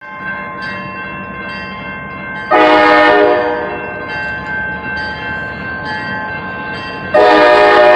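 CSX locomotive air horn sounding two loud blasts, about a second long and then one starting near the end, with the horn's chord carrying on more quietly in between.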